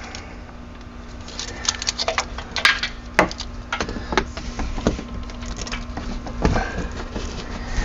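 Irregular metallic clinks, clicks and light rattles of tools and parts being handled during truck brake and hub reassembly, with a few sharper knocks, over a faint steady hum.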